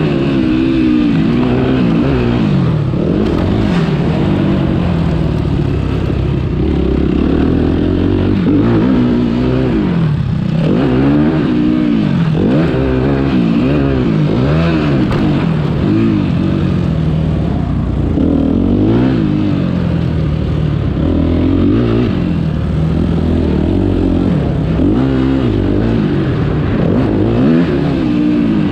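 Motocross bike engine revving up and down over and over, its pitch rising on the throttle and dropping off every second or two, heard close up on board the bike.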